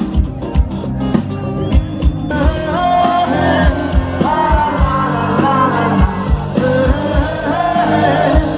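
A band playing a rock-style song over a steady drum beat, with a singer coming in about two seconds in.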